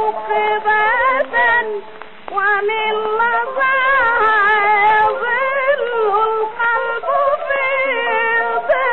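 A woman singing a classical Egyptian song in long, ornamented melismatic lines with a wide vibrato, briefly breaking off about two seconds in. The sound is dull and narrow, as on an early gramophone recording.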